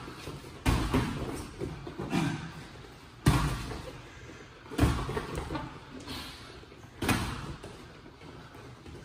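Boxing gloves landing punches during sparring: about half a dozen heavy thuds at irregular intervals, the loudest about three seconds in.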